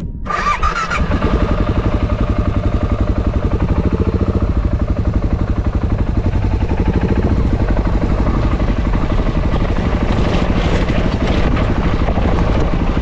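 A 650 cc motorcycle engine starts up and settles into steady, evenly pulsing running.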